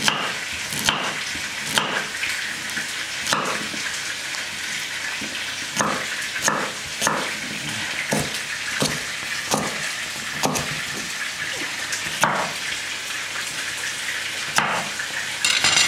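Kitchen knife slicing carrots on a wooden cutting board: irregular sharp knocks of the blade on the board, roughly one a second, over a steady sizzle from a frying pan.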